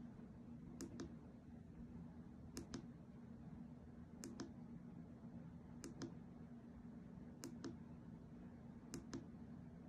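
Small push-button clicker on an LED face mask, pressed to step through the light colours: six quick double clicks at even intervals, about one every second and a half, over a faint steady low hum.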